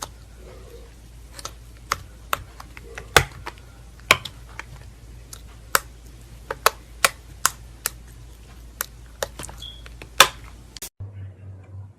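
Slime being handled by hand, making irregular sharp clicks and pops over a low steady hum. The sound cuts off abruptly about a second before the end, and a different low hum takes over.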